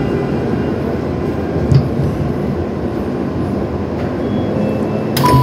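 Subway train running noise heard from inside the car as it pulls into a station: a steady low rumble of wheels and car. Near the end comes a sudden burst of noise, followed by a short beep.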